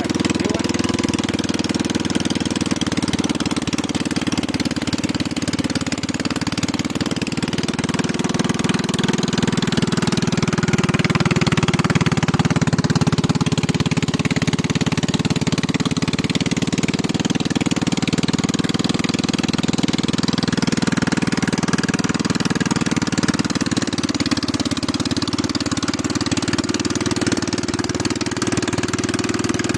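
The engine of a homemade tracked crop-spraying machine running steadily, with a hiss of spray from its boom nozzles.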